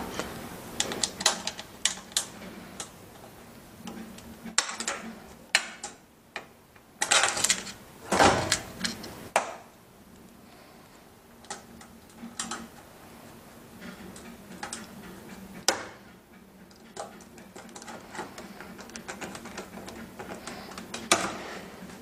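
Scattered clicks, taps and rattles of hard plastic being handled and pressed into place as a dishwasher's replacement detergent dispenser is fitted into the door, with a few louder clusters of knocks.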